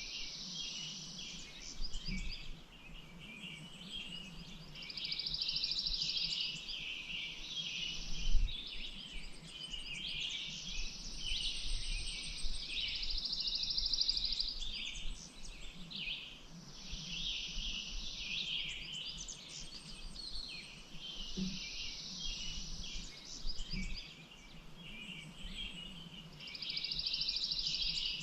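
Several songbirds singing and calling together, with a repeated buzzy trill of about two seconds recurring every few seconds. A low thump about eight seconds in.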